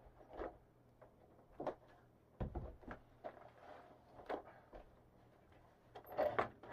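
Faint scattered knocks and rustles of a box being handled as it is wrapped, a few louder knocks near the end.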